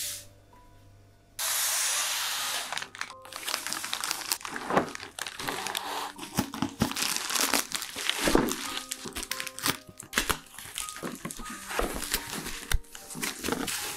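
Plastic mailer bag and foam packing sheet crinkling and rustling as a parcel is handled and unwrapped, starting suddenly about a second and a half in, over soft background music.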